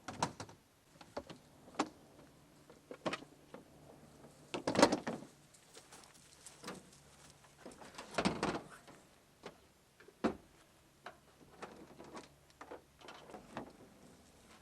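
A string of irregular clicks, knocks and clunks from something being handled, the loudest about five and eight seconds in.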